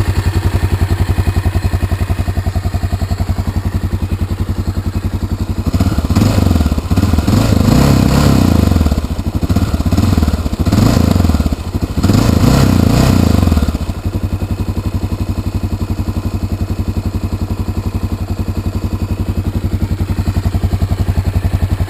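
Honda NX650 Dominator's single-cylinder four-stroke engine, warm, running through its original exhaust: a steady, even-pulsing idle, revved in about three bursts between about six and fourteen seconds in, then settling back to idle.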